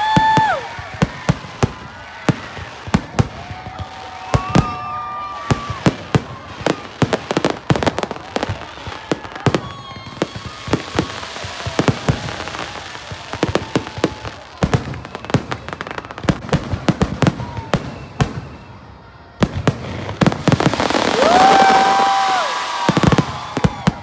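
Fireworks display: a rapid, irregular string of sharp bangs and crackles, getting denser and louder near the end.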